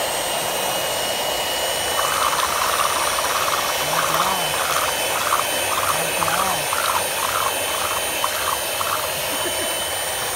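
Philips electric hand mixer running steadily, its beaters whipping a large steel bowl of raw eggs into froth. There is a continuous whirr with a high, even motor whine.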